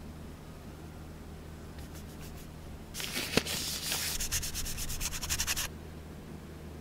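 Cloth rubbed briskly over small 3D-pen plastic deck pieces, wiping off dark paint to leave a weathered-wood finish, in quick repeated strokes for nearly three seconds, with one sharp tap near the start of the rubbing. A few faint strokes come before it.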